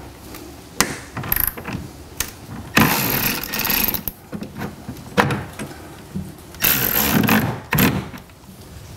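Cordless power driver spinning a fastener on a pickup's bed rail in two bursts of about a second each, with small clicks and taps of tool and metal in between.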